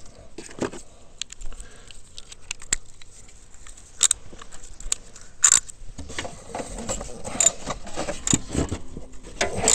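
Irregular metallic clicks and clinks from a hand socket ratchet and its sockets being worked on 10 mm bolts under an ATV's exhaust heat shield, with a few louder sharp clinks around the middle.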